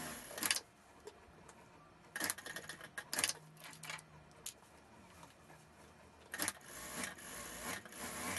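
Industrial lockstitch sewing machine stitching wool trouser fabric in short runs of a second or two, with a fast patter of stitches, and the cloth rustling as it is slid and smoothed between runs.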